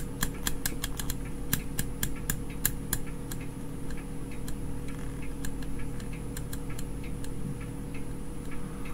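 Irregular sharp clicks from a multi-wafer rotary switch (an oscilloscope's timebase selector) being handled and turned, many in the first three seconds and sparser after. A steady low hum runs underneath.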